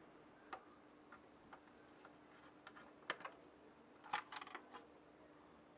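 Scattered light clicks and taps of a screwdriver working a screw on a Splendor motorcycle's air filter box cover, with a quick cluster of clicks about four seconds in. The screw's head is worn.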